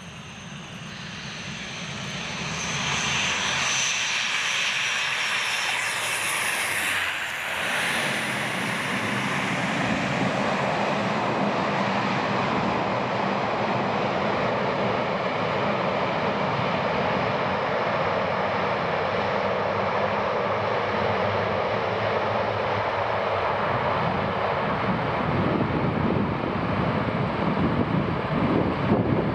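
Twin-engine turboprop aircraft landing. The engine and propeller noise swells over the first few seconds as it comes in, then holds steady with a low propeller drone as it rolls along the ground.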